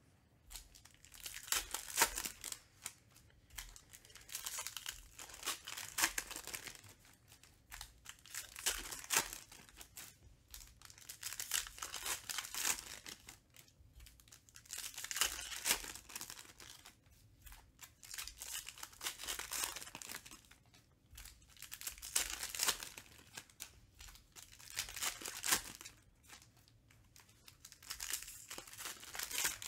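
Foil wrappers of Panini Recon basketball card packs being torn open and crinkled by hand, in repeated bursts of crackling every few seconds with short pauses between.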